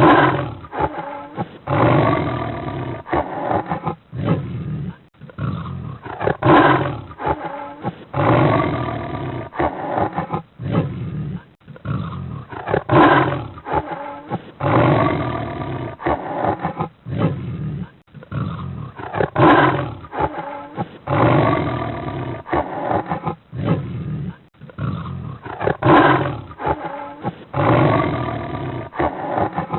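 Big cat roaring and growling in a series of rough calls, with the same sequence repeating about every six and a half seconds as a loop.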